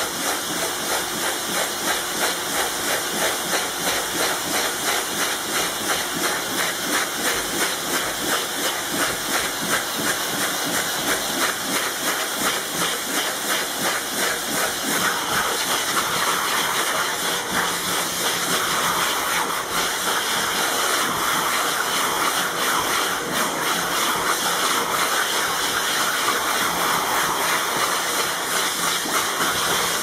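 Vacuum cleaner running: a steady hissing rush of suction air at the nozzle as it sweeps over the pool-table felt, growing a little brighter about halfway through.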